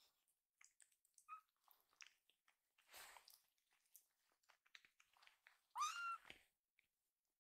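A tiny kitten mewing in protest while it is dosed with liquid medicine from a syringe. It gives a short faint mew about a second in and a louder, high, rising mew near six seconds, with a brief rustle of handling about three seconds in.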